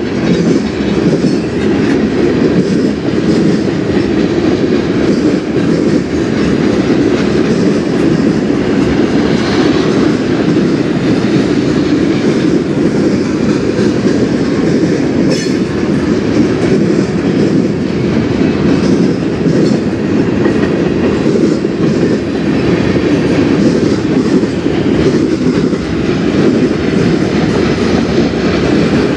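Freight cars rolling past: a loud, steady rumble of steel wheels on rail with a clickety-clack of wheels over rail joints. The train is made up of refrigerated boxcars and lumber-loaded flatcars.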